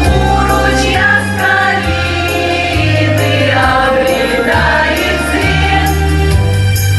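Amateur vocal group singing a song in unison chorus, over instrumental accompaniment with held bass notes that change every second or so.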